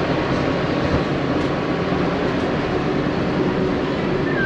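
Monorail train running past, a steady rail-vehicle noise that has built up just before and holds level, with a brief high squeal near the end.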